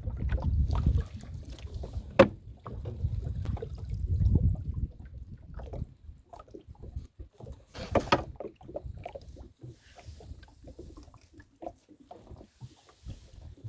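A small rowing boat or kayak being paddled on the water, with splashes and knocks against the hull. There is a low rumble through the first half, a sharp knock about two seconds in and a louder splash about eight seconds in.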